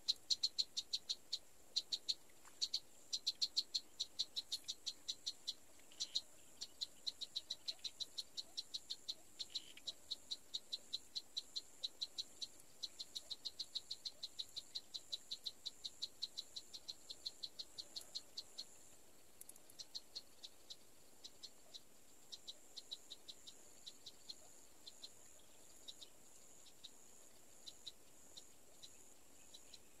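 Wildlife ambience: a fast series of short, high ticking calls, about four a second, thinning out and growing fainter about two-thirds of the way through, over a steady high-pitched hum.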